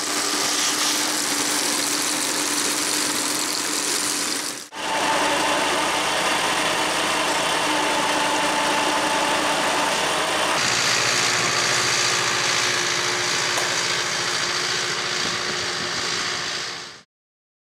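Tractor engine running steadily in three cut-together stretches, with a sudden break about four and a half seconds in and a change in tone about ten and a half seconds in; the sound stops abruptly near the end.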